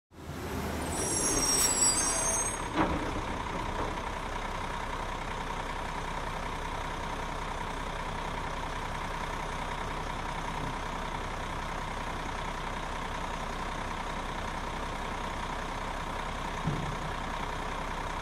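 A real garbage truck running with a steady mechanical whine. A brief high-pitched squeal comes about two seconds in, followed by a single clank.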